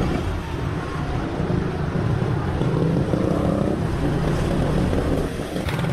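Wind rushing over the microphone of a moving motorcycle, over its engine running and tyres swishing on a wet road. A short knock near the end.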